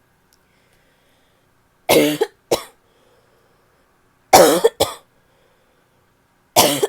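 A woman's barky cough: three fits, each a loud cough followed by a shorter second one, a little over two seconds apart, with quiet in between.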